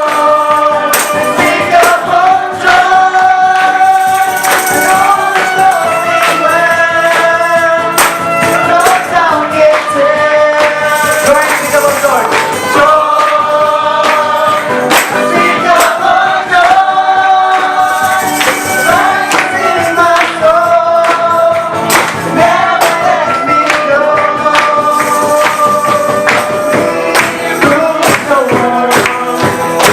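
A church choir singing a Christmas song over regular percussion hits, with long held notes.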